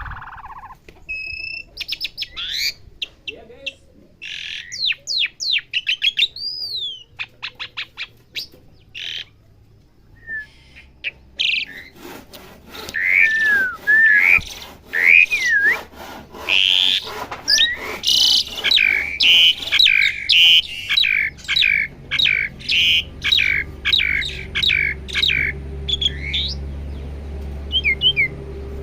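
Pied starling (jalak suren) singing: sparse whistled notes, glides and clicks at first, then from about twelve seconds in a dense, loud run of chirps, squawky notes and whistles repeated in quick succession.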